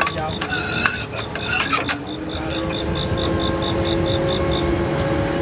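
Metal utensils scraping and clinking against cookware for about two seconds, then a steady hum, with a rapid high electronic beeping that stops near the end.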